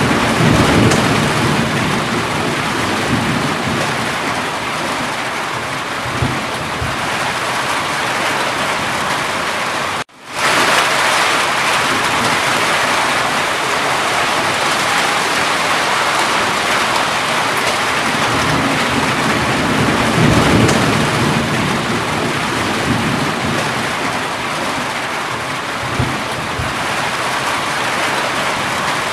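Steady heavy rain with low rolls of thunder, one near the start and another about two-thirds of the way through. The sound briefly cuts out about a third of the way in, like a splice in a looped recording.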